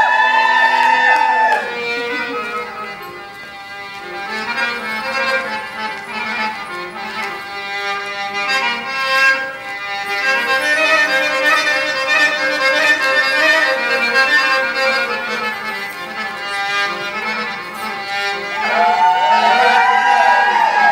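Instrumental belly-dance music. The melody swoops and slides in pitch and is loudest in the first two seconds and again from about nineteen seconds in, with softer, held notes in between.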